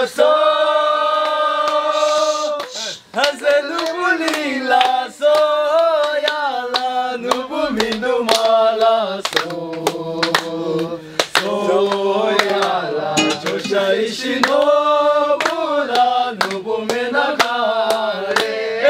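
Music with singing: a voice or voices holding long sung notes, with a steady run of short clicking beats.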